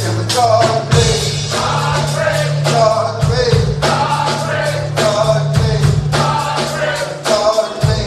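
A gospel song played by a live band, with a steady drum beat and bass line and singing over it.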